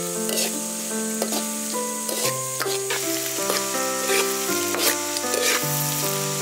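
Diced carrots, corn, peas and sausage sizzling in a hot wok as a metal ladle stirs them, with short scrapes and taps of the ladle against the pan. Background music with held notes plays under it.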